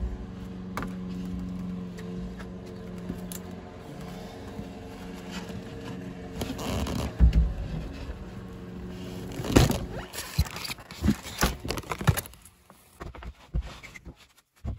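A plywood subfloor sheet being laid and stepped on in a van: scrapes and a few knocks on the wood, the loudest about ten seconds in. A steady engine hum runs under the first half, then fades.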